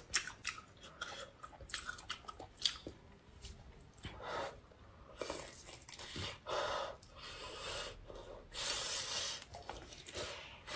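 Close-miked chewing and biting of cooked lobster meat in sauce: quick wet mouth clicks and smacks, then several longer, louder chewing sounds in the second half.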